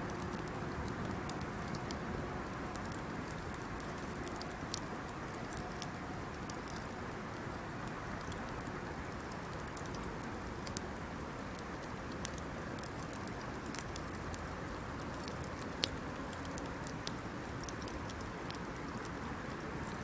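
Wood bonfire burning: a steady hiss from the flames with irregular sharp crackles and pops from the burning wood, a few standing out, the loudest about three-quarters of the way through.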